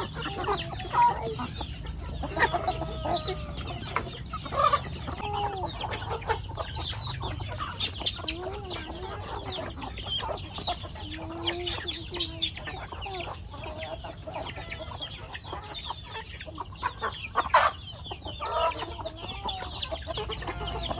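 A flock of chickens clucking as they feed on scattered corn, with many short gliding calls over a dense patter of small clicks. About seventeen and a half seconds in comes one sharp, loud sound.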